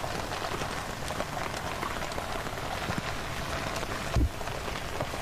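Steady rain pattering, with many small drop ticks. A single dull thud about four seconds in is the loudest sound.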